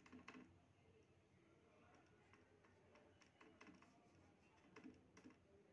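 Near silence: room tone with a few faint, irregular clicks and taps.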